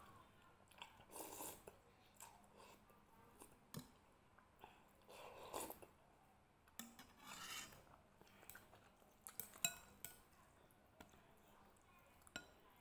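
Close-up eating sounds: noodles and broth slurped in several short pulls, with clinks of a metal spoon and chopsticks against a ceramic bowl, the loudest a sharp clink about two thirds of the way through.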